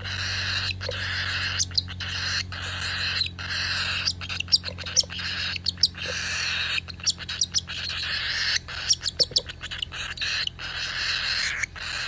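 Hand-fed cockatiel chick begging for food as it is fed from a syringe: a harsh, hissing food call kept up almost without let-up, broken by many short pauses.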